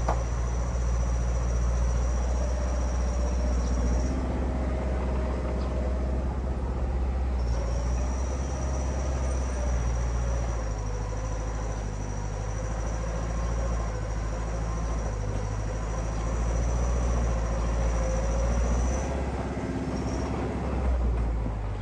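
Heavy diesel construction machine running steadily with a low engine drone. A thin high-pitched whine sits over it, dropping out about four seconds in and returning a few seconds later.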